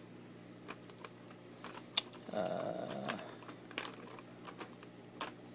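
Sharp plastic clicks and crackles from a thin blister tray as model-kit parts are pried out of their slots by hand, a few irregular snaps, the loudest about two seconds in.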